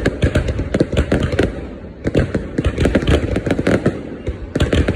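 Fireworks going off in a dense, continuous run of bangs and crackles, easing briefly about two seconds in before picking up again.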